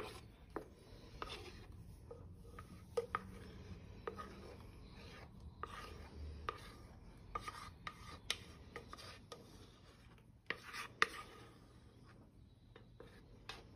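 Silicone spatula scraping whipped cream off the sides of a stainless steel mixer bowl into a glass bowl: faint, irregular scrapes with a few sharp knocks.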